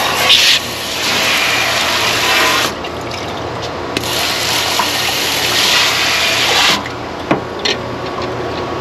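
Handheld sink sprayer blasting water onto a plastic cutting board, in two spells of about three seconds each with a pause between. A short knock follows soon after the spray stops.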